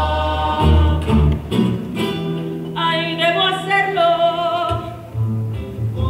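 A rondalla performing: acoustic guitars strummed and plucked under group singing. About three seconds in, a single voice carries a phrase with vibrato over a held low note.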